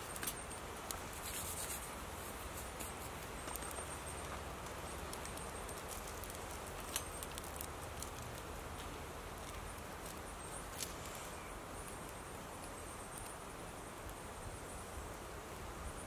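Small wood fire burning in a titanium Bushbox stove, with occasional sharp crackles and clicks as sticks and bark are fed in and handled, over a steady low hiss.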